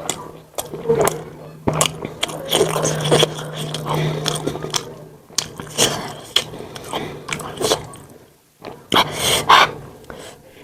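Close-miked chewing of momos (dumplings): wet mouth clicks and lip smacks with soft breaths, coming irregularly.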